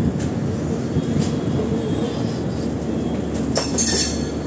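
LHB passenger coach running through a station, heard from its open door: a steady rumble of wheels on rail, with a few sharp clicks near the end.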